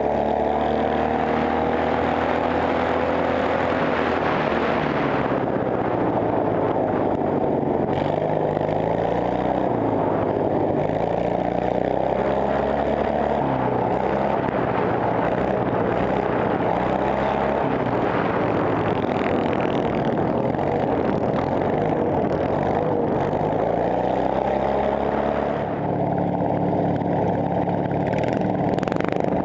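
Racing ride-on lawn mower's engine, heard from on board, revving up and down repeatedly through the bends. Near the end it settles to a steady, even note as the mower slows toward the paddock.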